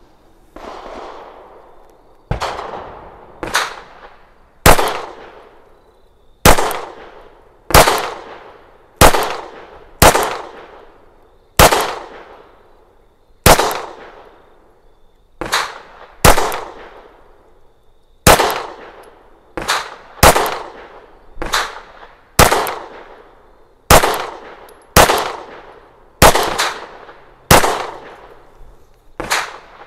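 FN 509 CC Edge 9mm pistol with its compensator firing about two dozen single shots at a steady, unhurried pace, roughly one a second, each with a short ringing tail.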